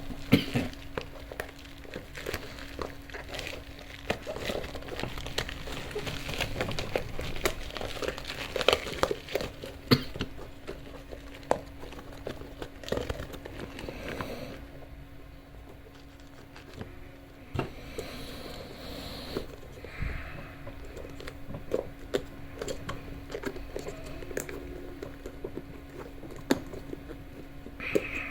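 Crinkling and rustling with scattered small clicks and knocks as things are handled, busiest in the first half, over a steady low hum.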